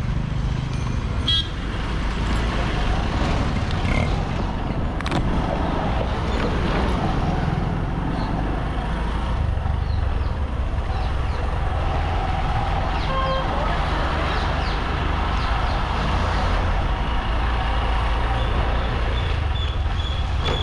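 Motorcycle engine and wind rumble while riding along a street, steady throughout, with brief vehicle horn toots, one about two-thirds of the way in.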